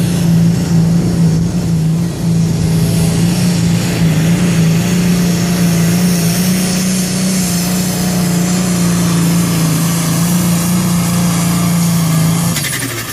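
Limited pro stock pulling tractor's diesel engine running flat out at a steady pitch while dragging a weight-transfer sled. Near the end the engine note drops away as the throttle comes off.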